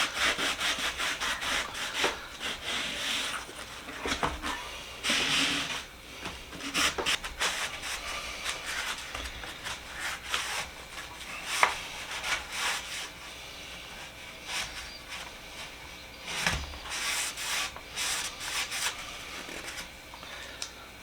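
Irregular rubbing and scraping strokes, some hard and some light, as paint is stripped and cleaned off the socket set's box.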